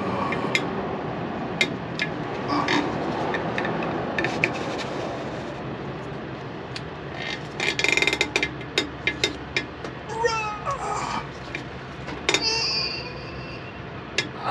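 Ratchet handle on a strap wrench clicking in short runs as it turns an air dryer filter cartridge, with a few short squeaks that slide up and down in pitch about ten seconds in and a higher squeal near twelve seconds.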